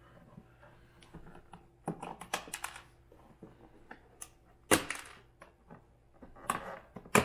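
Irregular clicks and knocks of hard plastic parts being handled: fender pieces and retaining clips being worked loose and set down. There is a short cluster of clicks about two seconds in, and single louder knocks near the middle and at the end.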